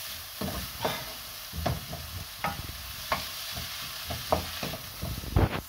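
Chopped onions and leek sizzling in a non-stick frying pan as they soften, while a wooden spoon stirs them, scraping and knocking against the pan at irregular intervals, with the loudest knock near the end.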